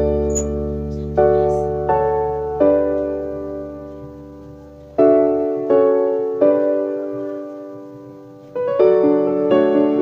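Background music: a slow, gentle piano piece, notes and chords struck every second or so and left to ring and fade.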